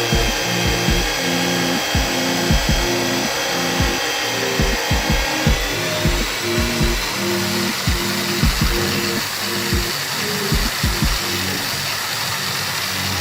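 Background music with a beat over a power tool running steadily, its whine stepping up in pitch about halfway through.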